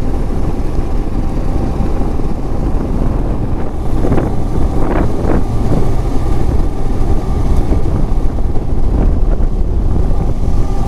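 Wind rushing over the microphone of a moving motorcycle, with the engine running underneath at a steady road speed. A few brief louder swells come about four to five seconds in.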